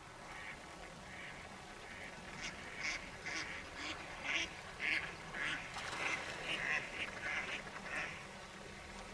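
Mallards quacking: a quick run of about fourteen short quacks, two to three a second, starting about two and a half seconds in and stopping about a second before the end.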